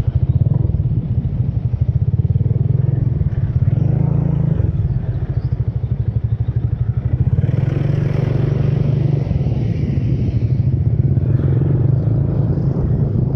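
Motorcycle engine running steadily while being ridden, heard from on the bike, with a low even drone and road noise. A higher hiss joins in for about three seconds past the middle.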